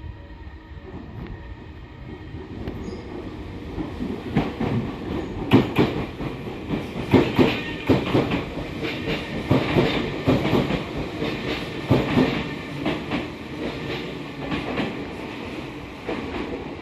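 A Tobu Skytree Line train passing through a station without stopping, running slowly. The train noise builds over the first few seconds, then the wheels clack over the rail joints in an uneven string of sharp beats before easing off near the end.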